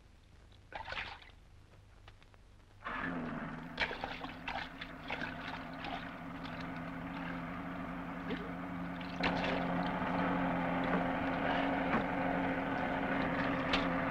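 A splash of water about a second in. Then, about three seconds in, a boat's engine drone starts suddenly and runs steadily, with water churning and splashing against the hull, and it gets louder about nine seconds in.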